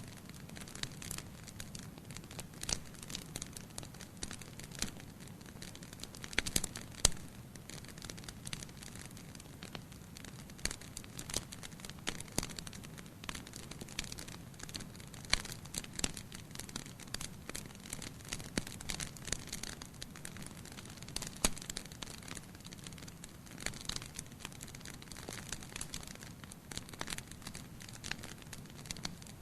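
Bonfire crackling: wood burning with irregular sharp pops and snaps over a low steady background, the loudest snap about seven seconds in.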